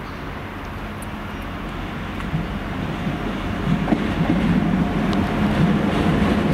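Class 175 diesel multiple unit approaching and running past on the platform road, its engine drone growing steadily louder as it nears, with a few sharp wheel clicks over the track about four seconds in.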